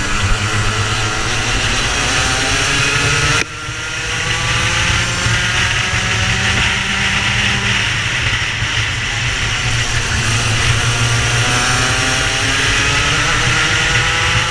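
Racing kart engine pulling hard, its pitch climbing steadily as it accelerates out of the turns. About three and a half seconds in the sound drops away suddenly, then the note builds and rises again.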